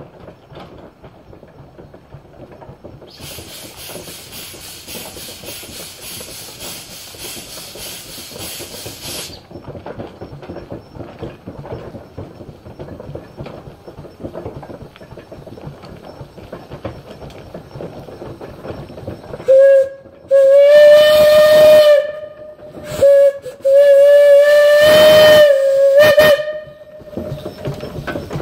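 Sawyer-Massey steam traction engine running toward the listener, with a loud hiss of steam starting about three seconds in and lasting about six seconds. About twenty seconds in its steam whistle sounds four blasts on one steady pitch, short, long, short, long, the loudest sound here.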